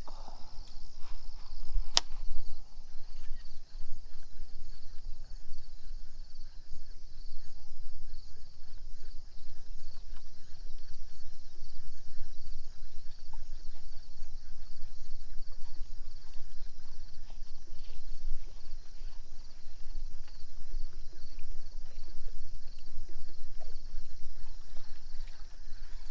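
Insects chirping steadily in a continuous high band over a constant low rumble, with one sharp click about two seconds in.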